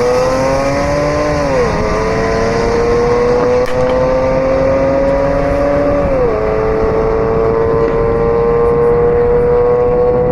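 Audi S5 engine at full throttle on a quarter-mile drag run, its pitch climbing steadily in each gear, with quick upshifts about two seconds in and again about six seconds in.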